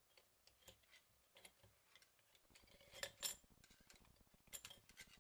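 Faint metallic clicks and clinks of a small screwdriver working the clutch plates out of a Sachs 505 moped engine's clutch basket, sharpest about three seconds in and again near the end.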